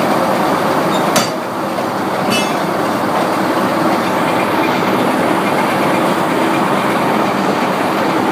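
Sawmill machinery running with a steady, loud mechanical clatter. There is a sharp clank about a second in and a lighter knock about a second later.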